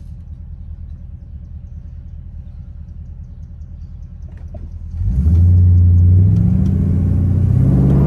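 Mercury Grand Marquis 4.6-litre V8 idling low at a standstill, heard from inside the cabin, then about five seconds in it accelerates hard from rest with its pitch rising. About a second later the pitch briefly dips and climbs again as the 4R70W automatic upshifts, shifting normally with new speed sensors fitted.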